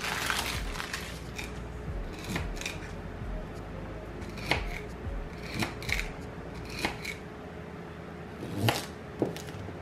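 Kitchen knife chopping celery and then a carrot on a wooden cutting board: about eight separate, unevenly spaced strikes, the loudest near the end. A paper towel is crumpled and rustles in the first second.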